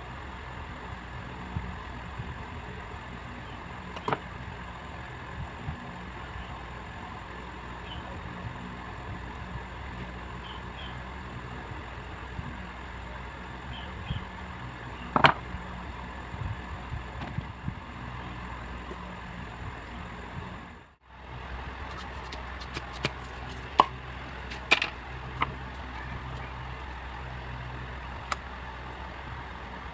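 Steady low background hum with scattered sharp clicks and taps, more frequent in the last third, and a brief cut to silence about two-thirds of the way through.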